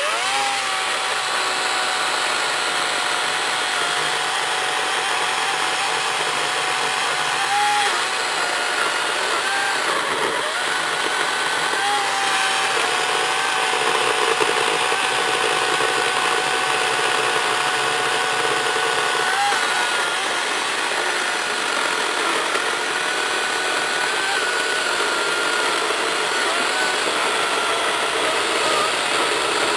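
Echo DCS-5000 56V battery chainsaw with an 18-inch bar running steadily under load as its chain cuts down through a large log: a steady electric motor whine over the chain's cutting noise, its pitch dipping briefly a few times.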